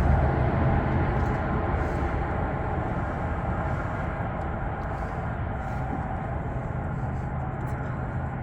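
Steady low rumble of idling vehicle engines and passing traffic, with a constant low hum under an even haze of noise.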